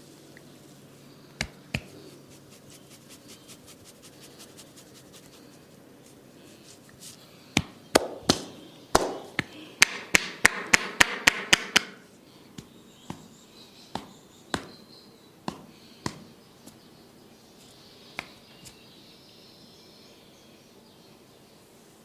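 Sharp slaps and cracks of a barber's head massage: two single strikes, then a fast run of strikes, several a second, for about four seconds, then a few scattered single strikes.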